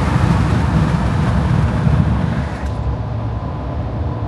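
Road noise inside a car driving on a wet, snowy highway: a steady low rumble of tyres and engine under a hiss of spray. The hiss drops off about two and a half seconds in.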